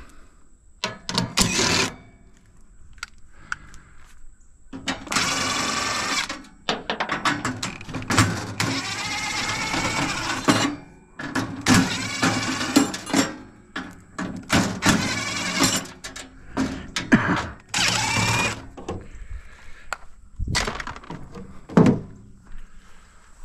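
Scrap metal being worked apart by hand: irregular bursts of metal scraping and squealing a second or two long, broken by sharp knocks and clanks.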